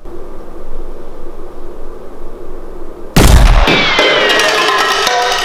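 A single loud bang about three seconds in as a Nerf blaster is fired at a cup stack, followed by ringing tones that slowly fall in pitch. A steady low hum comes before the bang.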